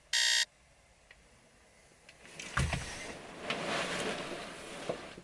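An alarm beeps once at the very start, the last of a short run of evenly spaced beeps. About two and a half seconds in comes a thump, then a couple of seconds of rustling and shuffling: a person stirring and getting up in a sleeping bag on an air mat.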